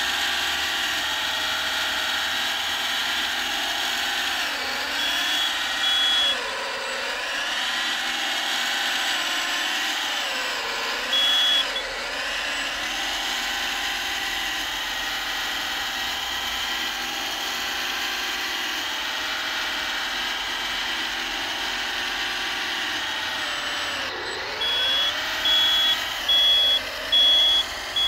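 1/14-scale RC hydraulic wheel loader running: a steady whine from its electric motors and hydraulic pump, the pitch dipping and recovering three times. A high reversing beeper sounds briefly twice, then repeats a little faster than once a second near the end as the loader backs away.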